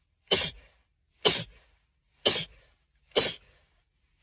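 A person sneezing in a rapid-fire fit, four short sneezes about a second apart.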